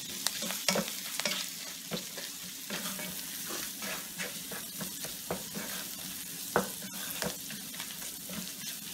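Green chillies, curry leaves and ginger-garlic paste sizzling in hot oil and butter in a nonstick pot, with a wooden spatula scraping and tapping against the pan in frequent short strokes as it is stirred.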